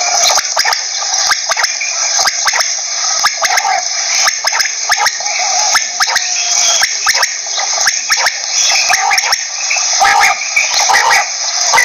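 Quail calling: a continuous run of short, rapid repeated notes and clicks with no pause.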